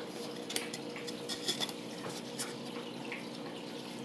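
Packaging being handled as a shipping box is unboxed: a few light clicks and knocks over a faint steady hum.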